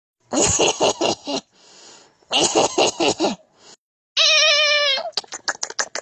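Animal-like cries played back from short chat voice messages: two harsh, pulsing bursts of about a second each, then a higher, wavering cry about four seconds in, followed by a quick string of clicks near the end.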